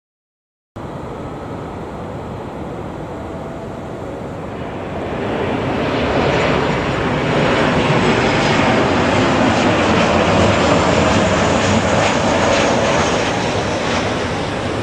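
Jet engines of a Ryanair Boeing 737 passing overhead on landing approach: a steady rushing noise that grows louder about five seconds in, holds, and eases slightly near the end.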